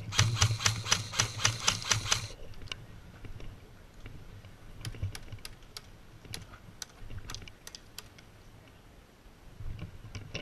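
Airsoft gun firing a rapid string of about a dozen shots in just over two seconds, then scattered fainter shots or clicks for a few seconds.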